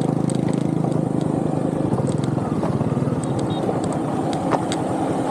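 Small motorbike engine running at low revs, with a steady low pulse, as it picks its way down a rocky dirt track, with loose stones clicking and knocking under the tyres now and then.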